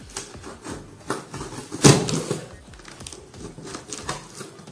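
A small blade slitting packing tape along the seam of a cardboard box: irregular scraping, tearing and rustling of tape and cardboard, with one loud knock against the box about two seconds in.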